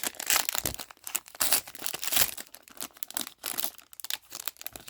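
Hockey card pack wrapper being torn open and crinkled by hand: irregular crackling and rustling with several louder crinkles.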